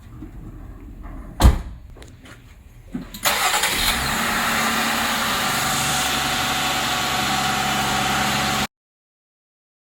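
A thump, then a Dremel rotary tool starts up about three seconds in and runs at a steady speed, cutting the plastic inner fender liner, before stopping abruptly near the end.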